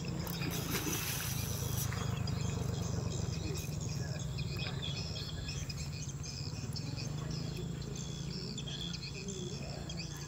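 Birds chirping and insects calling over a steady low hum, with a short rush of noise in the first two seconds.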